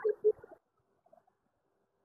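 A few short, low voice sounds like a murmur in the first half second, then near silence.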